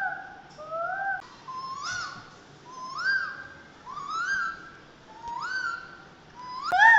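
An animal's pitched call repeated about once a second, each call rising then falling in pitch.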